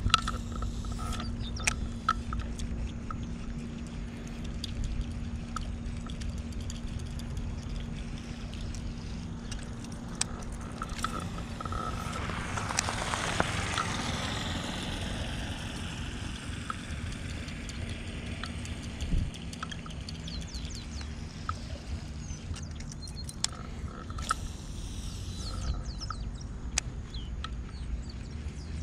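Wind rumbling on an outdoor camera microphone, with scattered small clicks. About halfway through a whoosh swells up and fades away, falling in pitch.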